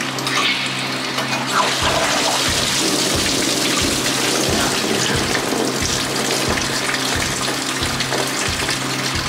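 Red fluid gushing from a disconnected radiator line and splashing into a drain pan, starting about two seconds in and running on steadily. A steady hum continues underneath.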